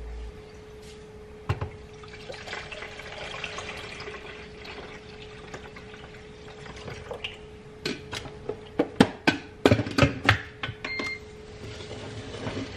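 Liquid being poured into a container over a steady low hum. About eight seconds in come a quick run of clicks and knocks as kitchen containers and lids are handled.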